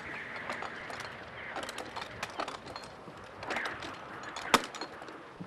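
Eased headsails on a square-rigged sailing ship flapping in the wind, with the rigging rattling: a steady rush of wind broken by many irregular small snaps and one louder crack about four and a half seconds in. The sails are luffing because their sheets have been eased so the bow can turn upwind during a tack.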